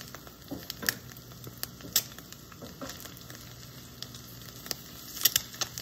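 Eggs frying in a steel skillet: a steady sizzle with scattered pops and crackles, coming more often near the end.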